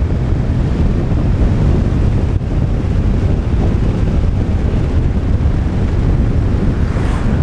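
Wind rushing over a helmet-mounted action camera's microphone on a moving motorcycle: a loud, steady, low rush of buffeting air with no breaks.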